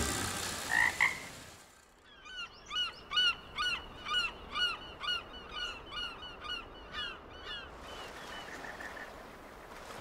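A frog calling in a quick run of short, hooked croaks, about two to three a second, that stops about eight seconds in, leaving a faint steady outdoor hiss.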